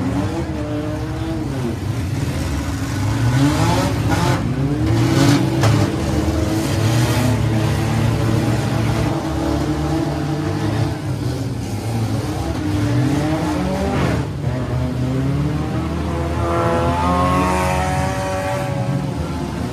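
Six-cylinder demolition derby cars' engines revving hard, their pitch rising and falling, with several sharp crashes of cars smashing into each other, a cluster about four to five seconds in and more later.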